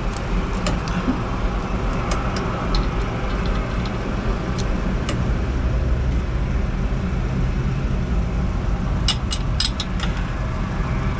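Steady low rumble of background machinery, with a few sharp metallic clicks and a quick cluster of them about nine seconds in as a wrench works the APU igniter plug tight.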